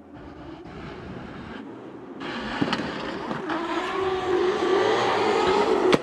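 Two drift cars, a Nissan Silvia and a self-built competition car, accelerating away from the start and drifting in tandem. Faint at first, the engines grow louder from about two seconds in, with the engine note rising as they rev.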